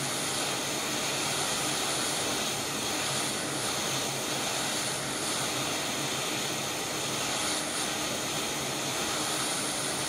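Quick 861DA hot air rework station blowing a steady hiss of hot air from its nozzle, with a faint hum under it, while it melts the solder holding a flexi flat cable connector.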